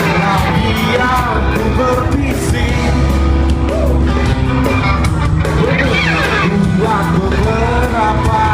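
Live rock band playing: electric guitar, bass and drums with cymbals, and a voice singing over them.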